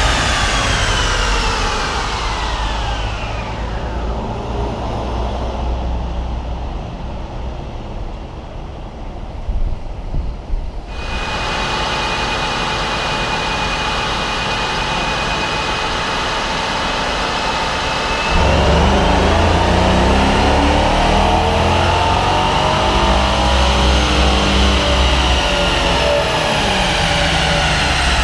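A 2015 GMC Sierra's 5.3-litre V8 on a chassis dyno. It winds down in pitch at the end of a full-throttle pull, then runs steadily. About eighteen seconds in, it opens up for another wide-open pull, climbing in pitch for about six seconds before easing back down.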